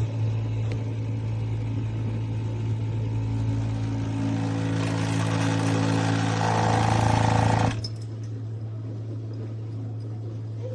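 Breville Bambino espresso machine's vibratory pump humming steadily. A hissing rush builds about five seconds in and cuts off suddenly near eight seconds, leaving a lower hum.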